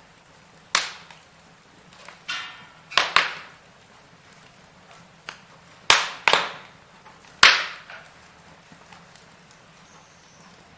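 Wood fire burning in a fireplace: sharp crackles and pops from the burning logs, about seven of them at uneven intervals, each dying away quickly, over a faint steady background.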